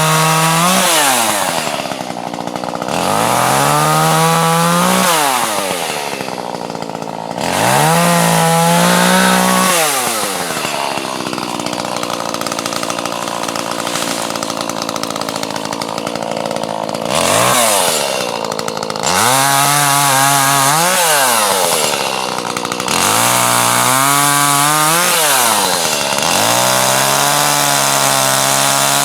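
Chainsaw cutting wood, its engine revving up and dropping back again and again, with a steadier stretch of running in the middle.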